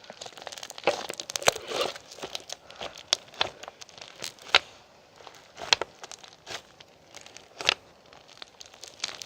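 Irregular crinkling and rustling with sharp crackles and snaps, the loudest about one and a half, four and a half, five and a half and seven and a half seconds in.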